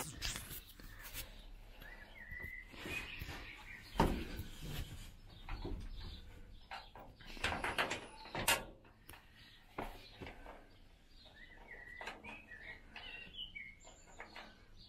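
Scattered metal clicks and knocks as a bolt is worked into the bunk's steel frame on the roof rail, the loudest about 4 s and 8.5 s in. A few short high chirps come around 2 s in and again near the end.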